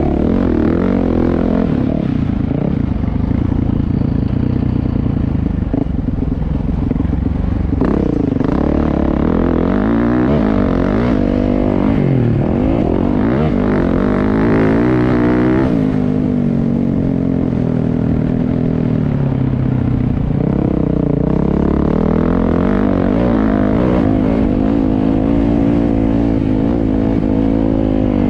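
Dirt bike engine revving up and down as it is ridden around a motocross track, heard from onboard the bike. Its pitch rises and falls with each throttle change and gear shift, with a long climb about halfway through along a straight.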